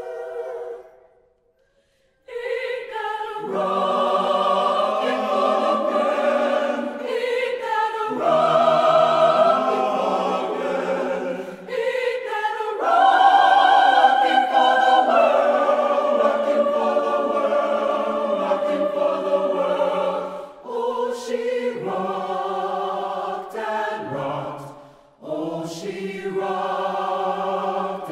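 Mixed choir of men and women singing: a held chord dies away, there is a brief silence about a second in, then the full choir comes back in and sings on in phrases, with short breaks between them.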